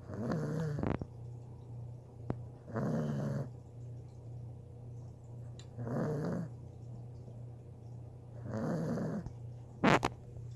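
A sleeping puppy snoring really loud: four long snores, about one every three seconds, over a steady low hum. A single sharp click comes near the end.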